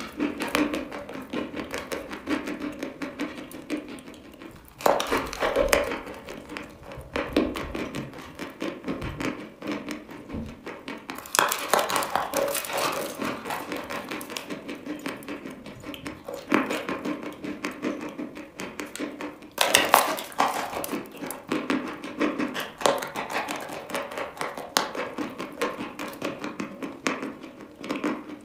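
Close-miked chewing of dry white chalk topped with black chalk crumbles: dense crunching and crackling, with several sharper, louder bites along the way.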